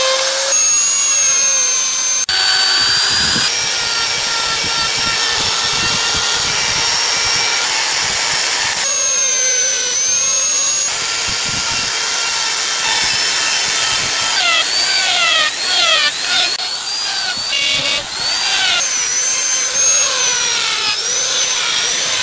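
High-speed rotary die grinder with a carving burr cutting wood, a high-pitched whine. Its pitch dips and recovers again and again in the second half as the burr bites into the wood.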